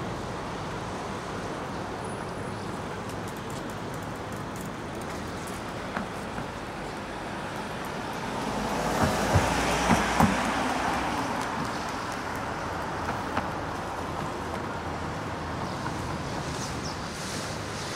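Road traffic going by: a steady hum of passing cars that swells as a vehicle passes close about halfway through, with a few short knocks as it goes by.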